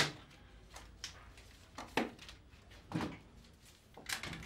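A few separate knocks and clatters in a small room: a sharp clack at the start, then a knock about two seconds in, a duller thud about three seconds in and a short clatter near the end.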